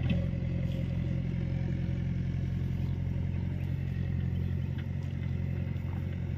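A steady, low engine drone at constant speed, with a few faint clicks.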